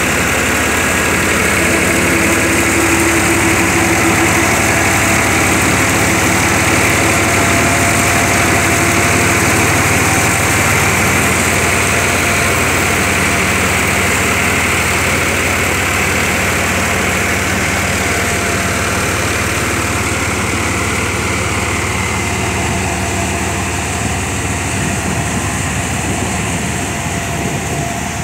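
KS straw reaper, driven by a New Holland 3630 tractor, running steadily under load as it cuts stubble and blows straw through its chute into a trailer: tractor engine and reaper machinery together in one continuous loud sound. It grows a little fainter over the last few seconds as the machine pulls away.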